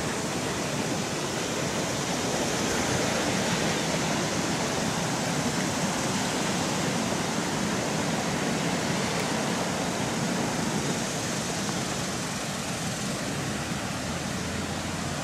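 Steady rush of a flood-swollen creek, its muddy water running high and fast.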